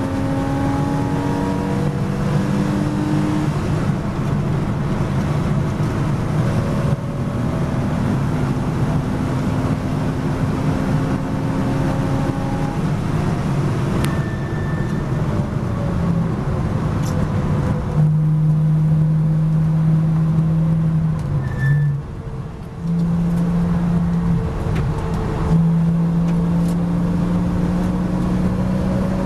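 Porsche Boxster S race car engine heard from inside the cockpit at speed. It pulls hard up through the gears, rising in pitch with shifts. It then lifts off and changes down under braking for a corner, with a brief dip a little past two-thirds of the way in, and pulls again near the end.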